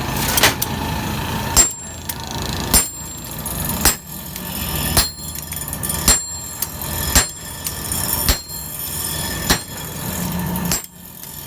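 Blacksmith's hammer striking the axe head on an anvil, about one blow a second, each blow ringing out with a high metallic ring, over a steady background noise.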